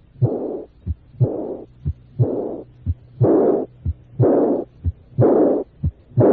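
Recorded heartbeat at about one beat a second. Each beat's short heart sounds are followed by a loud, high-pitched blowing murmur that starts at its loudest and fades away. This is the decrescendo early diastolic murmur of aortic regurgitation, beginning right after the second heart sound.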